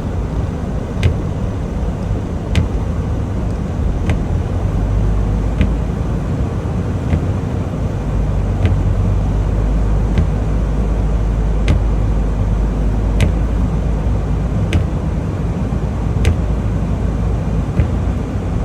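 Steady low rumble of a tractor-trailer's engine and road noise heard from inside the cab while driving, with a short sharp click repeating about every second and a half.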